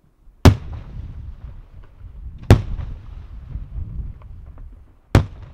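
Aerial firework shells bursting: three loud bangs about two seconds apart, each followed by a low rumbling echo, with a few faint crackles in between.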